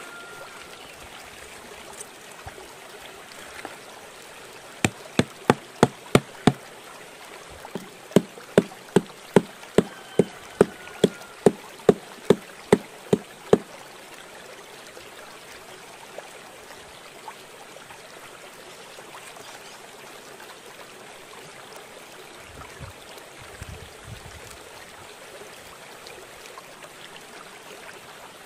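Running stream water with insects buzzing, broken by two runs of sharp, evenly spaced knocks, about three a second: a short run of six, then, after a pause of a second or two, a longer run of about fourteen.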